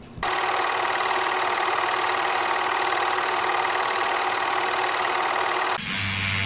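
Movie film projector running: a steady mechanical clatter that starts abruptly and cuts off near the end, where music begins.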